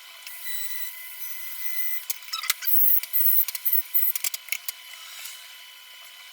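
Small hand-held drill or rotary tool with a scratching bit running with a high whine, then grinding in short scratchy strokes about halfway through as it widens a hole in the device's middle frame.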